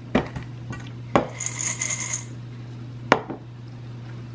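A stainless steel pot of dry stuffing bread cubes being handled: a few sharp metallic clinks and knocks, and a short ringing metallic rattle about one and a half seconds in as the dry cubes shift in the pot.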